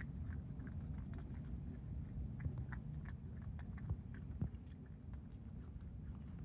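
An opossum chewing its food: quick, irregular small clicks of jaws and teeth, with a couple of louder bites about four seconds in, over a low background rumble.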